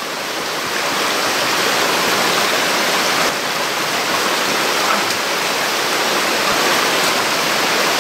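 Shallow stream running over river stones: a steady rush of water.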